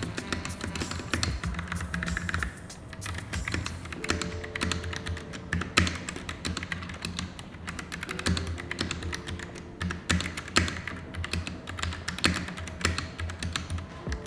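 Typing on a mechanical keyboard with Gateron Brown tactile switches (Daxa M71 Pro): a quick, continuous run of keystroke clacks, under background music.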